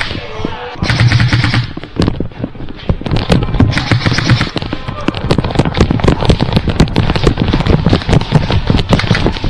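Airsoft guns firing rapid bursts of sharp shots, many a second, carrying on throughout.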